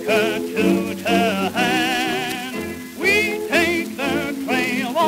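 A circa-1934 dance orchestra recording playing from an old 78 rpm record. A melody line with strong vibrato and upward slides runs in phrases over the band's accompaniment, with the record's surface hiss underneath.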